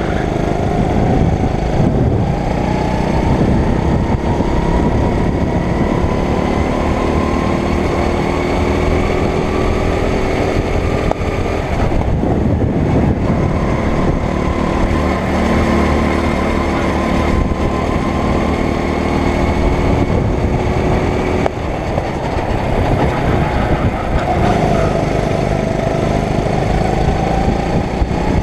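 The kart's 9 hp engine running under throttle. Its pitch climbs and falls as the driver works the pedal, with a brief drop about two-thirds of the way through. Wind rushes over the onboard microphone.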